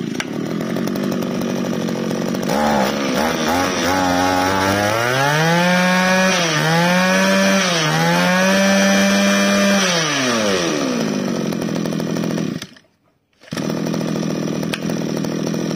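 Mitsubishi TB23 23cc two-stroke brush-cutter engine idling, then revved up about two seconds in and held high with two brief dips, dropping back to idle around ten seconds. The sound cuts out for a moment about thirteen seconds in, then the engine idles again.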